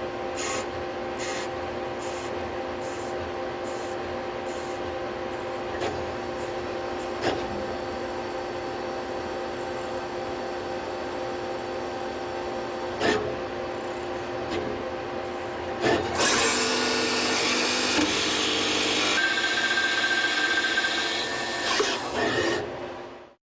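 Citizen L12 Swiss-type CNC lathe running: a steady machine hum with several even tones and occasional clicks. About two-thirds of the way through, a louder hissing, grinding stretch of cutting with changing tones begins, then the sound cuts off suddenly near the end.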